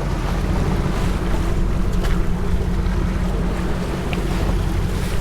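Boat engine running steadily, with wind buffeting the microphone and the wash of the sea around the hull.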